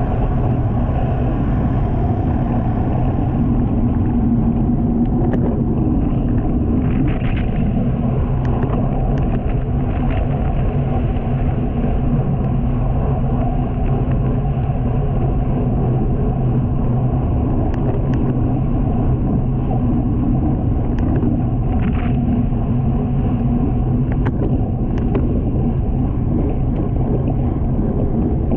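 Steady, loud wind rumble buffeting a bicycle-mounted camera's microphone while riding at speed, with a few faint clicks scattered through it.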